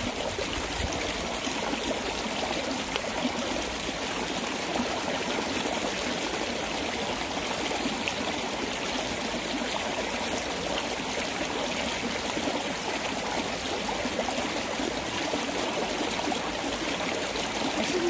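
Rain-swollen mountain stream flowing steadily over rocks.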